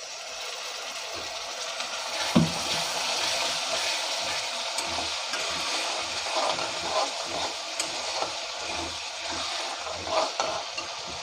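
Tomato-and-spice masala sizzling steadily in a steel kadai just after a little water is poured in, with a spatula stirring and scraping against the pan. A sharp knock about two seconds in.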